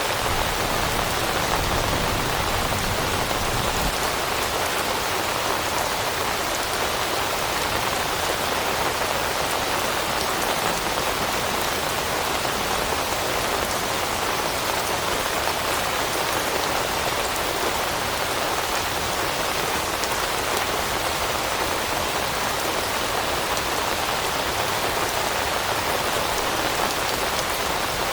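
Steady rain falling, an even patter of raindrops.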